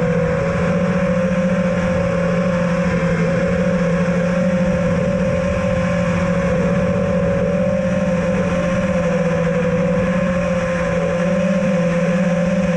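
FPV quadcopter's motors and propellers running steadily in flight: a hum whose pitch wavers slightly as the throttle shifts, edging up near the end.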